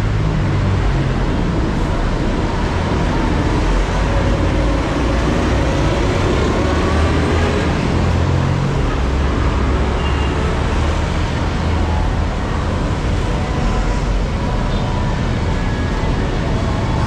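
Busy city-street traffic: a steady low rumble of bus, truck and motorcycle engines.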